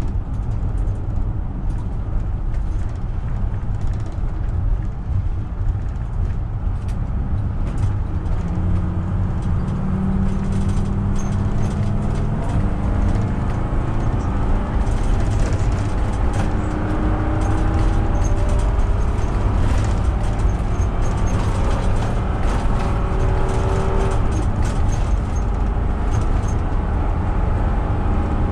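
A Class A motorhome being driven: a steady low road and engine rumble, with the engine note climbing in pitch and dropping back twice as it accelerates through the gears.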